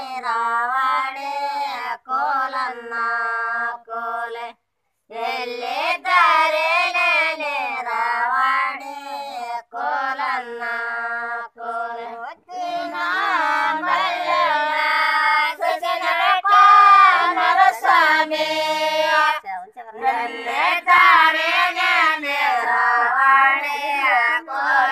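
Women singing a Kannada Gauri festival folk song in call-like phrases with short pauses, breaking off briefly about five seconds in.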